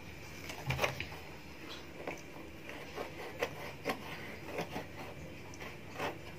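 A plastic lotion bottle being handled and turned over in the hands: a scattering of light, irregular clicks and taps with some rubbing.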